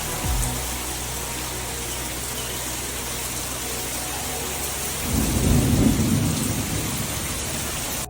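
Heavy rain pouring steadily, with a roll of thunder rumbling low about five seconds in and lasting around two seconds.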